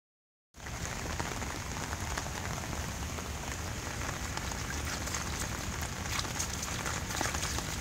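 Steady patter and hiss of rain on wet pavement and puddles, with small splashes of a toddler's hands patting the puddle water.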